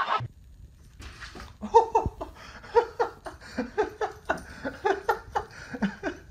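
A person laughing in short repeated bursts, about two to three a second, starting about a second in.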